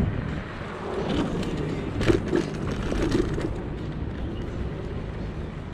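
Steady rumble of wind and road noise while riding an electric unicycle, with a sharp knock about two seconds in.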